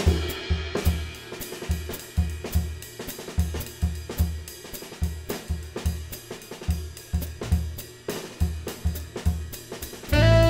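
Small jazz band playing: a drum-kit groove of snare, hi-hat and cymbals over regular low electric-bass notes. A tenor saxophone comes in near the end and the music gets louder.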